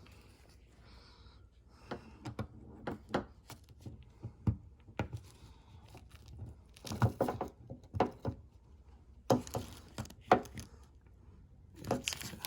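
Irregular clicks, knocks and rustling of hands fitting a car's keyless door handle assembly and its connector back into place, in several quick clusters from about two seconds in.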